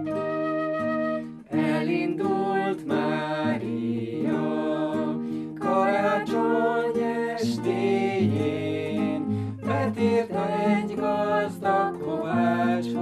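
Hungarian folk Christmas song sung with acoustic guitar accompaniment. A held recorder note ends about a second and a half in, and the singing of the first verse begins.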